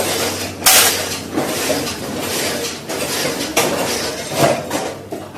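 Metal tools and engine parts clinking and clanking against each other, with a loud clank about a second in and two more near the end.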